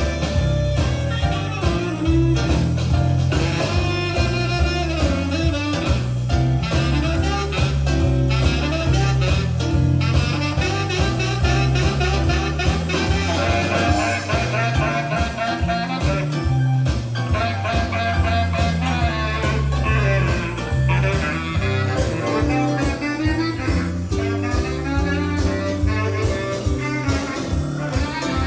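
Blues music with guitar, brass and singing, played back from a cassette tape on a Sony TC-K555ESA deck.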